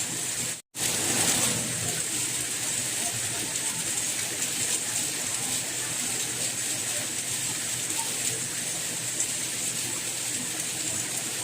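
Steady rain, an even hiss of falling water. It cuts out completely for an instant a little under a second in, then carries on.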